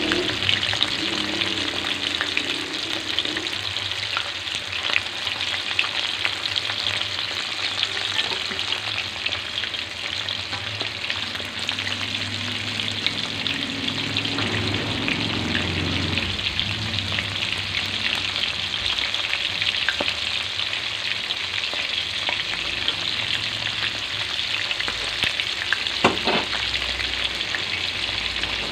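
Tilapia frying in hot oil in a wok: a steady sizzle with dense crackling and spitting, and one louder sharp crack near the end.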